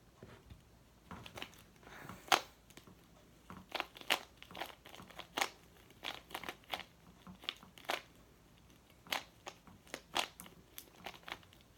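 Plastic speed cube being turned quickly by hand during a timed solve: a fast, irregular run of sharp clicking turns, some in quick clusters.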